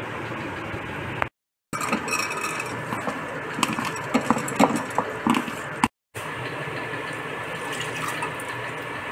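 Dry split lentils tipped from a plastic bowl into a metal pressure cooker, a dense rattle of many small ticks. After a brief break, water is poured from the bowl into the cooker in a steady rushing pour.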